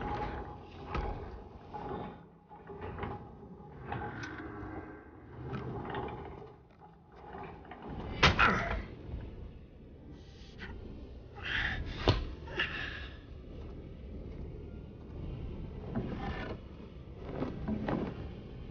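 Wooden fence rails and planks being handled: scattered knocks, clatter and scraping of wood, with two sharp knocks about eight and twelve seconds in.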